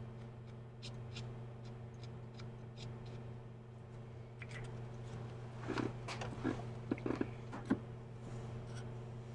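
A felt-tip permanent marker drawn over a knife's serrated edge: faint ticks of handling, then a few short squeaks from the marker strokes about six to eight seconds in, over a steady low hum.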